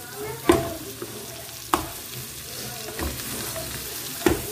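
Pork rib pieces sizzling as they go into garlic, onion and pepper frying in lard in an aluminium pressure cooker, with a steady frying hiss. Three sharp knocks against the pot ring out briefly as the meat is added and moved with a wooden spoon.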